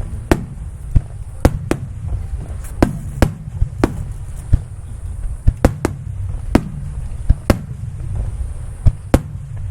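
Fireworks shells bursting overhead in a rapid, irregular barrage, about fifteen sharp bangs in under ten seconds, each trailing off in a short echo over a continuous low rumble.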